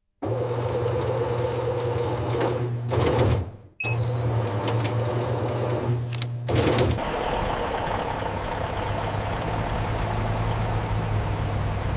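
Steady low hum of a running vehicle engine, broken by abrupt cuts about 4 and 7 seconds in, with a few short clunks.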